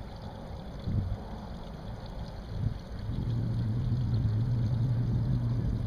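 Outboard motor on a fishing boat idling, a steady low hum that grows louder about three seconds in.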